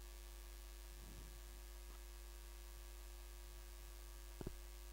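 Steady low electrical hum with no speech, with a faint brief sound about a second in and a short tap near the end.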